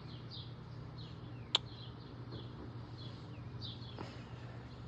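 Bird chirping faintly and repeatedly in short falling chirps over a steady low hum, with one sharp click about a second and a half in.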